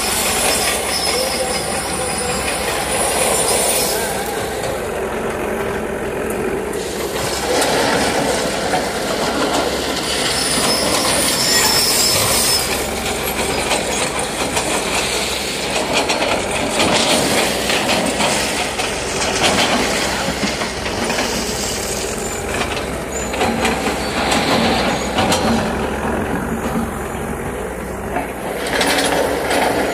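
Caterpillar 424B backhoe loader's diesel engine running as its backhoe bucket drags through the track ballast, with a steady, loud scraping and rattling of stones.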